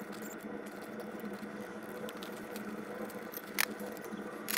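A hand tool being worked on a copper fuel line: faint scraping and ticking, with two sharp clicks about a second apart near the end, over a low steady hum.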